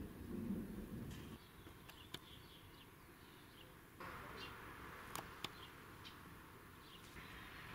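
Quiet outdoor ambience under a storm sky: a low rumble that stops abruptly about a second and a half in, then faint short bird chirps, a few sharp clicks and a soft hiss that grows a little louder about four seconds in.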